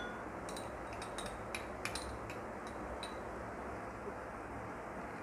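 A spoon clinking and tapping lightly against a container, about ten small clicks in the first three seconds as pickle is added to a pot of lentils. A steady low hum runs underneath.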